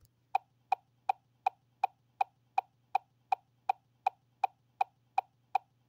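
Steady, even ticking, a little under three ticks a second, starting just after the beginning, over a faint low hum.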